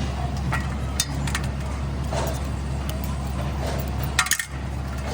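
Metal parts and hand tools clinking and clicking now and then, with a cluster of clinks just after four seconds, over a steady low hum.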